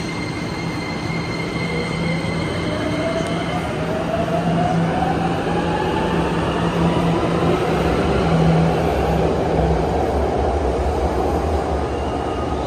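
Beijing Subway Line 10 electric train pulling out of the station. Its traction motors whine, rising steadily in pitch as it accelerates, over a low hum and wheel running noise that grow louder to a peak about eight seconds in and then ease off as it leaves.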